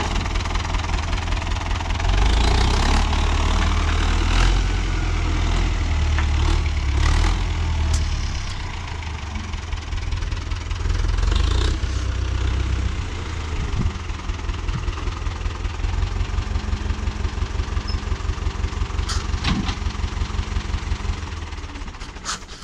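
Renault 651 tractor's diesel engine working under load and revving harder for several seconds, then settling to a steadier, quieter run, with a few sharp knocks and clatters as the front-loader bucket pushes through rubble.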